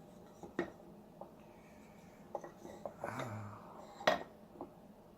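Light clicks and knocks from small wooden workpieces and a clamp being handled and positioned, with a short scrape about three seconds in and one sharper knock a second later.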